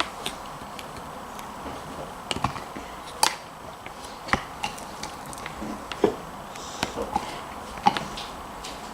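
Scattered light clicks and knocks of a small mould and cups being handled while slime is pressed into them, a dozen or so irregular taps with no steady rhythm.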